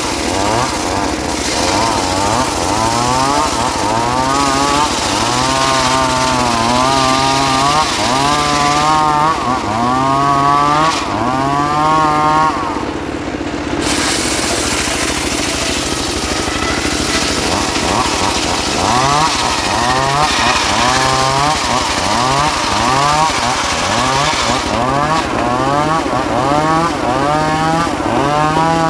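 Homemade circular sawmill blade ripping a trembesi log lengthwise. The saw's pitch dips and recovers over and over, about once a second, with a brief break about halfway through.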